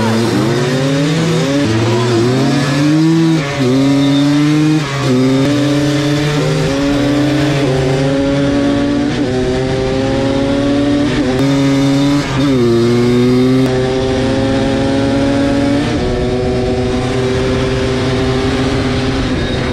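Two-stroke ATV engines of a Yamaha Blaster and a Kawasaki Tecate 4 accelerating flat out in a drag race. The pitch climbs, then drops sharply at each upshift, about eight times as they work through the gears.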